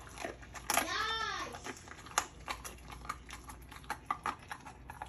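A dog nosing and mouthing a piece of raw chicken on a mat over a tiled floor: scattered sharp clicks and taps from its mouth and nails. A short high voice sound rises and falls about a second in.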